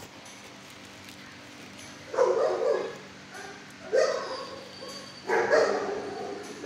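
Dog barking three times in a shelter kennel: about two seconds in, again at four seconds, and again just after five seconds, the last bark drawn out longest.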